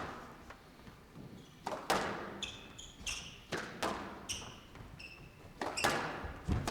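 Squash rally: the ball cracking off rackets and the court walls about every half second to second, each hit echoing in the hall, with brief high squeaks of players' shoes on the court floor.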